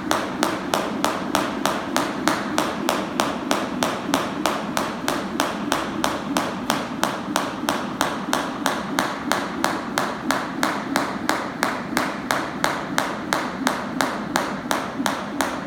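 Jump rope skipping on a rubber gym floor: the rope slaps the floor in a steady, even rhythm, about three slaps a second.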